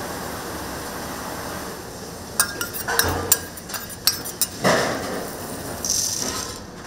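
Kitchen clatter: a quick run of clinks and knocks of dishes and utensils about halfway through, over a steady background hiss, followed by a couple of short scraping or rustling bursts.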